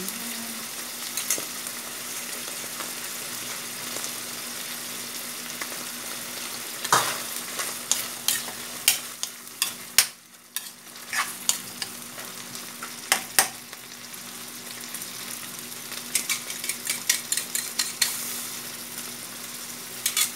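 Beaten egg and tuna frying in a wok with a steady sizzle. From about seven seconds in, a spatula scrapes and knocks against the wok in quick clusters of strokes as the mixture is stirred.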